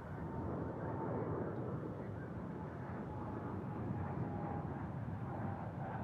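Jet airliner engines heard at a distance: a steady rushing rumble with a faint high whine held on top.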